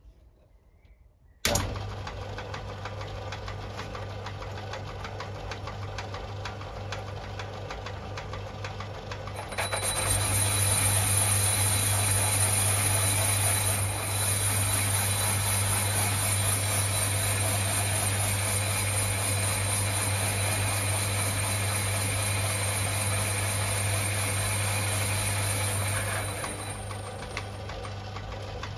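Myford ML7 lathe switched on about a second and a half in, its motor and headstock running steadily with a low hum as it spins a cast-iron flywheel on a mandrel. About ten seconds in the sound grows louder and brighter, and it eases a little near the end.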